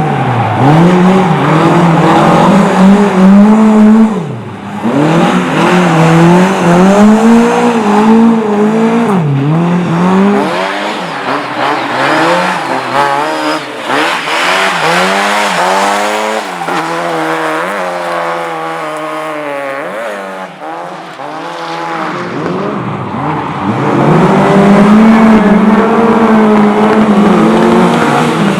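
Race car engine revving hard, its pitch repeatedly climbing and dropping back as it is driven on and off the throttle, with tyres squealing. It is loud at first, fades somewhat through the middle, and comes back loud near the end.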